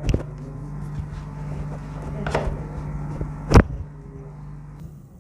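Three sharp cracks or slaps from hands-on chiropractic manipulation, the loudest about three and a half seconds in, over a steady low hum.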